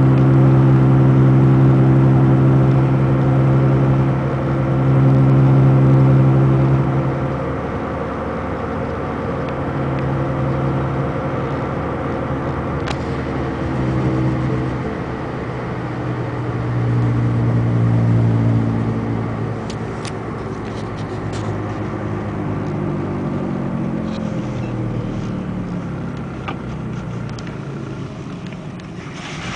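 Inside a 2002 VW Beetle TDI at road speed: a loud droning hum over tyre and road noise, swelling and fading in waves, then sinking in pitch as the car slows near the end. The drone comes from a bad passenger-side front wheel bearing.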